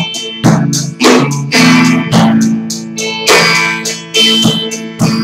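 Guitar strumming chords in a slow song, a fresh strum every half second or so, each chord left to ring.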